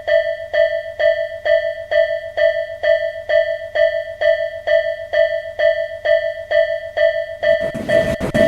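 Japanese level-crossing alarm bell ringing its repeated electronic 'kan-kan' ding, about two and a half strikes a second, warning that a train is coming. About seven and a half seconds in, the noise of a passing train comes in under it.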